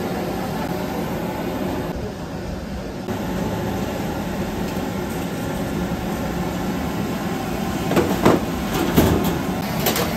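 Steady rushing of a gas-fired steamer for rice noodle rolls and its escaping steam. A few sharp metallic clatters from steel trays and utensils come near the end.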